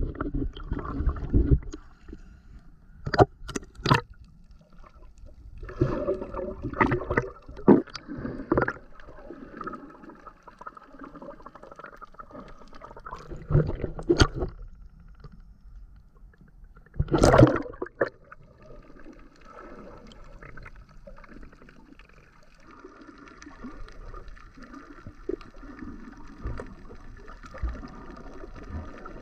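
Seawater sloshing and splashing over a GoPro action camera at the waterline, with sharp splashes as it breaks the surface, the loudest about two-thirds of the way through. After that it settles into the duller, steady wash of the camera underwater.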